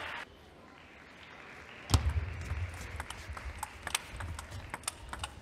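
Celluloid-type table tennis ball clicking back and forth off rubber paddles and the table in a fast doubles rally, the first sharp click coming about two seconds in, then roughly two or three clicks a second, with low thuds underneath.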